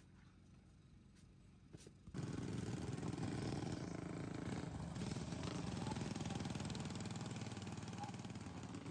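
Racing lawn mower engines running hard, coming in suddenly and loud about two seconds in after a quiet start.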